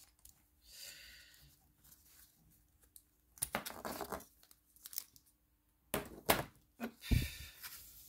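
Rustling and crinkling handling noise in several short bursts as the embroidery canvas is picked up and moved about, with a soft thump about seven seconds in.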